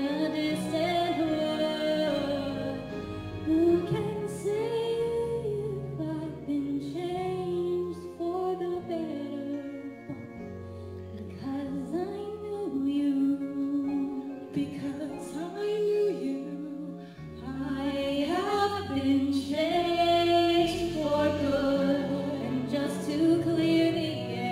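Two women singing a duet into handheld microphones over an instrumental accompaniment, the melody moving in long held notes.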